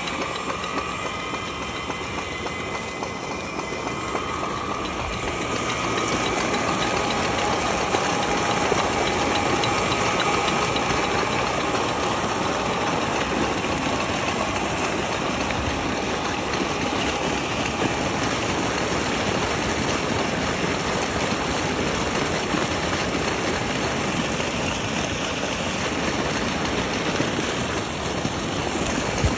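A solar tube well's electric pump motor hums with a faint steady whine for the first few seconds. Then water pumped from the well gushes out of the discharge pipe and splashes into the channel, a steady rushing sound that grows a little louder about five seconds in and holds.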